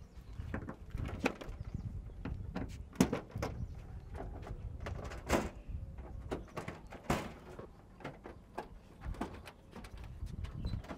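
Irregular light clicks and knocks of hands and a screwdriver working the quick-release fasteners on a light aircraft's engine cowling, over a low background rumble.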